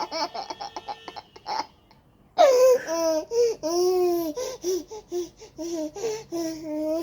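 Baby laughing: quick chuckling bursts, a brief pause about two seconds in, then longer high-pitched squealing laughs.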